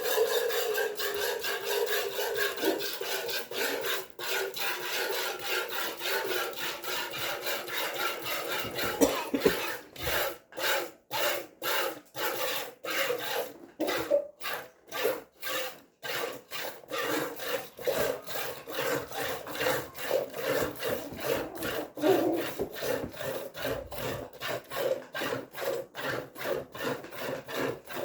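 Hand-milking a dairy goat: streams of milk squirting into the pail with a rhythmic hiss, about two squirts a second.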